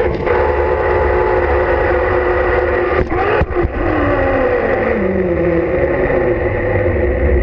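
Zipline trolley pulleys whining along the cable over wind rumble on the microphone. Two sharp knocks come about three seconds in, then the whine falls in pitch as the trolley slows at the landing.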